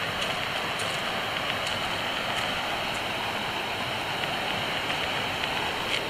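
A creek running, a steady, even rush of flowing water.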